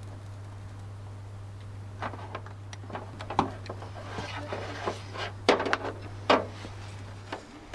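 Workshop handling noises: a quick, irregular run of clicks, knocks and short scrapes as tools and parts are picked up and put down, two sharper knocks near the end, over a steady low hum.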